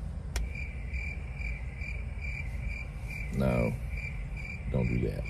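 Cricket chirping: a steady high pulsing trill, about four pulses a second, over a low hum.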